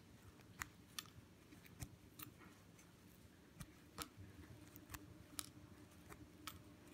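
Faint, irregular light clicks, about ten over several seconds, as dressmaking pins are worked out of glue-stiffened ribbon and set down.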